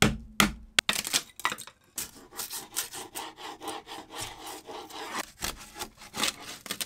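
A hand scraper working loose, rotted wood veneer off a wooden wall panel: a few sharp knocks at first, then from about two seconds in a fast, dense run of scraping strokes against the wood.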